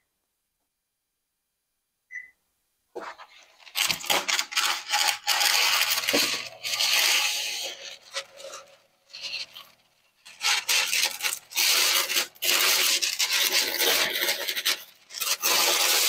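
Two short beeps from the electric range's keypad as the oven is set to preheat. Then a large sheet of parchment paper rustles and crinkles loudly, on and off, as it is pulled out and spread flat to line the cake pan.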